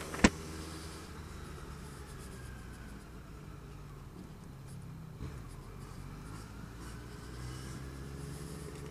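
Motorcycle engine running steadily at low, even revs, likely idling, with one sharp click about a quarter second in.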